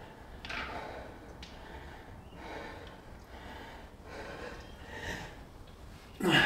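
A man breathing hard and forcefully through a set of cable pulldowns, with sharp exhalations about once a second. Near the end comes a louder, voiced strained grunt of effort.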